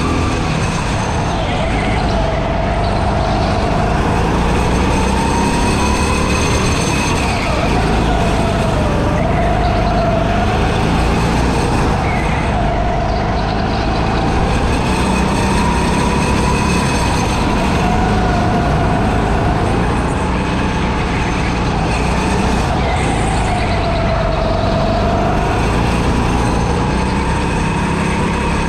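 A go-kart's motor heard from on board, its pitch rising and falling again and again as it speeds up on the straights and slows for the corners, over constant running and road noise.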